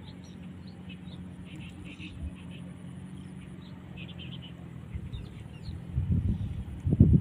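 Small birds chirping in short scattered bursts over a steady low hum. Near the end, loud low rumbling takes over.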